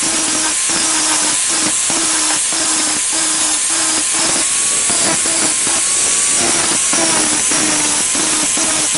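Electric power tool running with a steady hum under a loud hissing grind, broken by short regular dips about two or three times a second.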